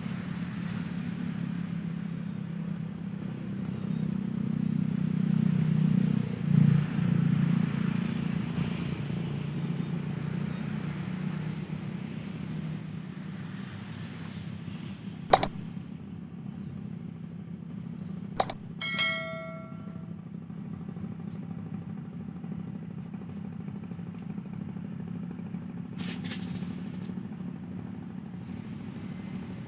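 Steady low rumble of traffic on the bridge overhead, swelling about four to eight seconds in as vehicles pass. Two sharp clicks come a few seconds apart past the middle, the second followed by a brief pitched tone.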